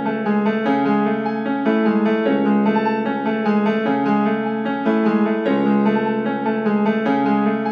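Background music: a keyboard melody over steady low notes, the same phrase repeating about every three seconds.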